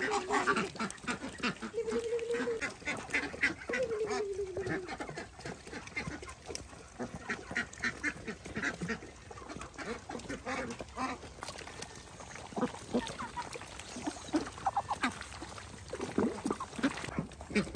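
Farmyard ducks calling, with a few drawn-out calls in the first five seconds and scattered shorter calls later, over a run of short clicks.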